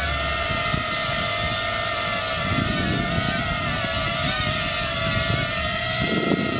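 Hover Camera Passport quadcopter's four caged propellers hovering, a steady whine whose pitch wavers slightly.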